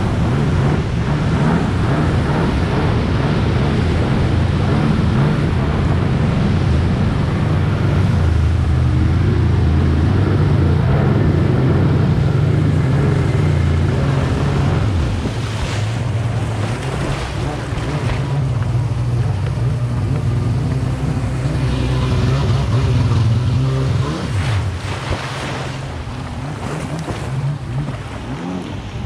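Stand-up jet ski's engine running at speed, with water rushing and spraying off the hull and wind on the microphone. It eases off and gets quieter over the last few seconds.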